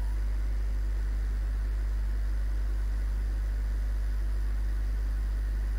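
A steady, unchanging low hum with a faint hiss over it.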